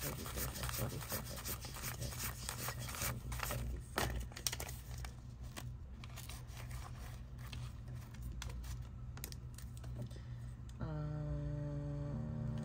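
Paper money rustling and rubbing as a stack of banknotes is flipped through and straightened by hand in a plastic bill organizer. Near the end a steady low hum comes in and drops a step in pitch.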